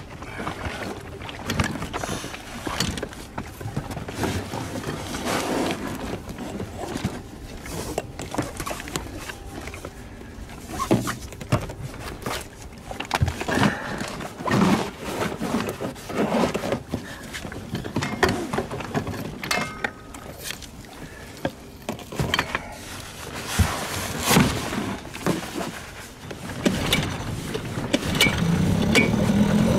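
Irregular knocks and clatter of gear being handled in a boat. Near the end a boat motor starts up and runs with a steady hum.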